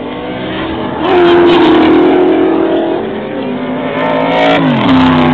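Race cars, a Ford Capri and a Ford Mustang, passing at speed with their engines running hard. The engine note gets loud about a second in and drops sharply in pitch near the end as a car goes by.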